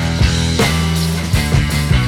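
Background rock music with bass, guitar and a steady drum beat.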